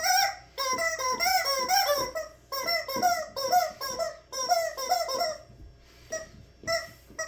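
Squeaky rubber chicken dog toy squawking again and again as the dog chews it. The squawks come in quick runs of rising-and-falling cries for about five seconds, then thin out to a few single squeaks.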